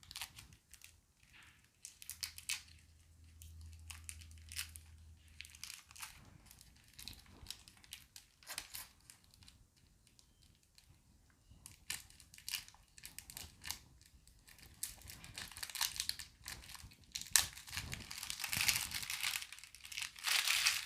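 Packaging wrap around a new tarot card deck crinkling and tearing in quick irregular crackles as it is unwrapped by hand, busier and louder in the last few seconds.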